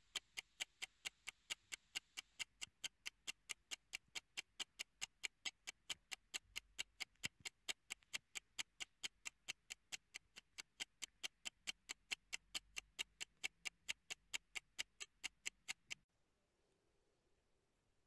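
Clock ticking, a rapid, even run of sharp ticks at several a second that cuts off abruptly near the end.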